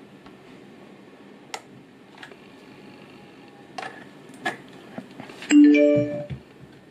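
A few light clicks of the plastic sound bar and USB flash drive being handled. Then, about five and a half seconds in, the portable sound bar's speakers sound a short chime of several tones that fades over about a second: its prompt tone on switching to MP3 playback from the USB flash drive.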